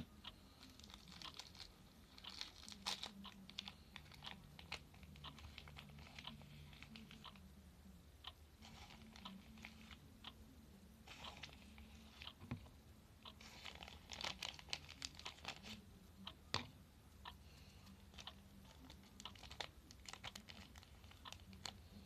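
Homemade slime being mixed, making faint, irregular sticky clicks and crackles, with busier stretches about three, nine and fifteen seconds in.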